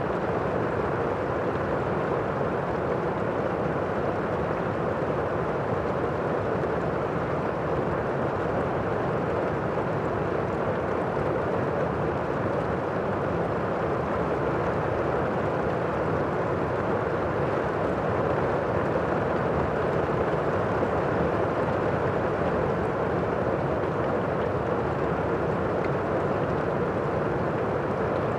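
Steady rain, a dull and even hiss with little high treble and no single drops standing out.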